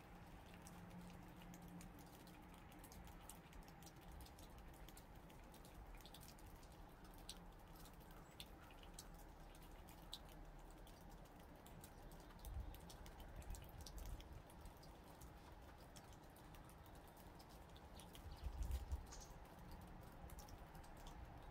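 Faint, irregular small clicks and crunches of a gray squirrel chewing food held in its paws, with a few low thumps in the second half.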